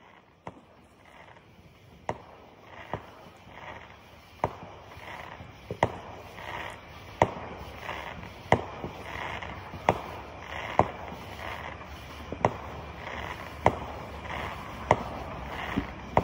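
Fireworks popping, sharp reports about one every second and a half over a background haze that grows louder.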